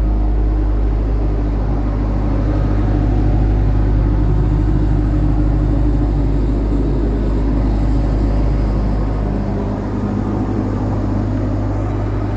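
CAT 308C mini excavator's diesel engine running steadily with a deep, even hum, easing off slightly about ten seconds in.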